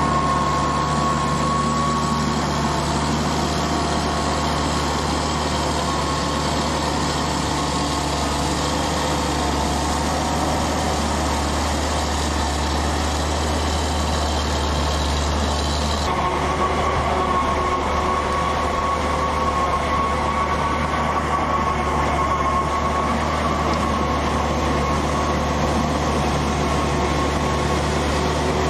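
Engine of a tracked MeriTractor Suocco S500 running steadily under load as it pulls a MeriPeat RT-600 T rotary leveller through peat soil, with a steady hum over the low drone. The sound abruptly turns duller about sixteen seconds in.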